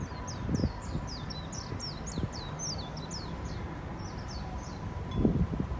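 A bird calling a quick series of high, falling chirps, about five a second, that thins out after about three seconds. Underneath is a steady low rumble, with two low thuds, one about half a second in and one near the end, that are the loudest moments.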